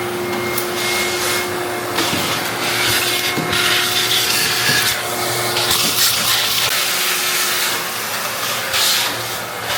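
Vacuum cleaner starting up and running, a steady hum under loud suction hiss, with rubbing and scraping against wood that swells and fades as the surfaces are cleaned of dust.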